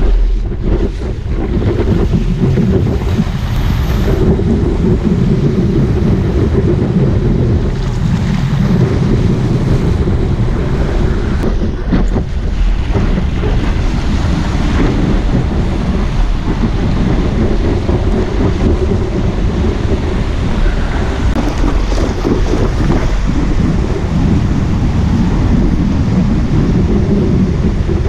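Steady wind buffeting the microphone of a board-mounted camera, over the rushing and splashing of water as a paddleboard rides a breaking wave.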